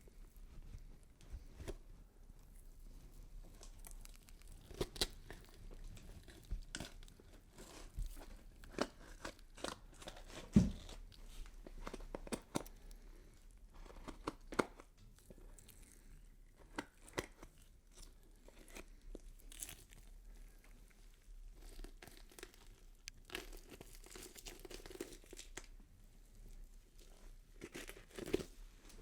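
Horror sound effect of scattered crackling, crunching and snapping noises at uneven intervals, with one heavier thump about ten and a half seconds in.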